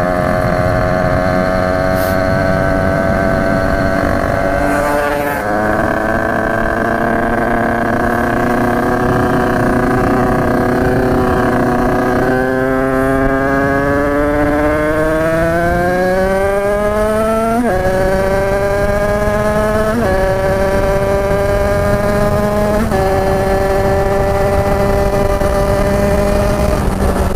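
Tuned two-stroke Derbi motorcycle engine with a big-bore kit, running under throttle. Its pitch holds steady at first, then climbs for about five seconds past the middle, and drops suddenly three times near the end.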